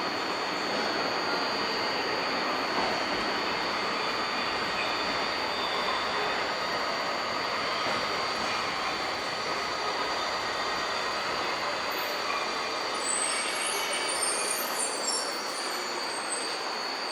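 Tokyo Metro 1000 series subway train running, a steady rush of rail and wheel noise with a thin high whine above it. Short, very high wheel squeals come in near the end.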